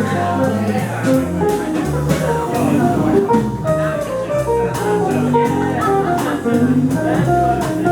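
Jazz quartet playing, with a moving low line under changing pitched notes and a steady pulse of short high ticks.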